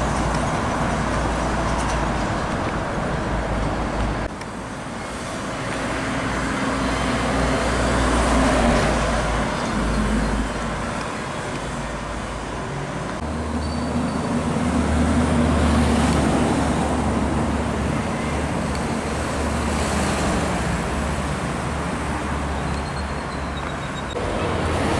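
Expressway traffic: heavy trucks and cars passing at speed, tyre and engine noise swelling as each goes by. The sound changes abruptly about four and thirteen seconds in.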